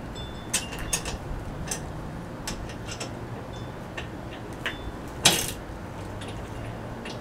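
Socket ratchet and open-end wrench tightening the bolts of a generator's metal handle bracket: irregular metallic clicks and clinks, with one sharper clank about five seconds in.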